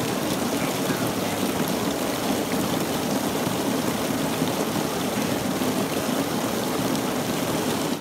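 Decorative water fountain's jets spraying and splashing down, a steady rush of water that cuts off abruptly at the very end as the jets shut off.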